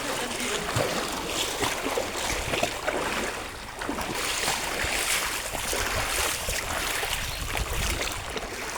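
Rain and splashing water: a steady rushing hiss with many small irregular splashes.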